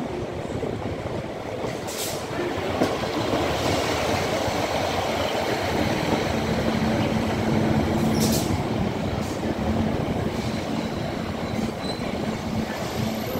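Class 153 single-car diesel multiple unit running past along the platform: its diesel engine and the wheels on the rails make a dense rumble that grows louder as it comes alongside. A steady hum joins from about halfway, with two brief high hisses about two and eight seconds in.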